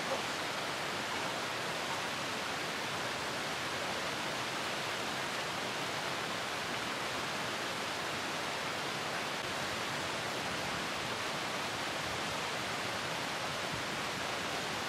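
Steady rush of a small rocky mountain stream cascading over stones and a small waterfall.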